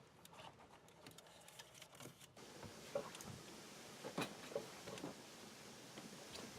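Faint scattered clicks and light scraping of a plastic door-armrest window-switch panel being pried up, with a few sharper clicks in the second half.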